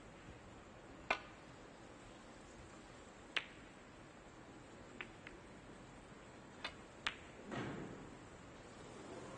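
Snooker balls clicking: a sharp click of the cue tip striking the cue ball about a second in, a second sharp click as the cue ball strikes the reds a couple of seconds later, then several fainter clicks of balls touching. A brief soft murmur near the end.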